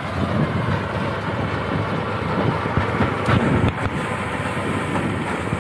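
Tractor engine running steadily under load while its tractor-mounted reaper binder cuts standing wheat, the engine and the cutter's mechanism running together as one continuous noise.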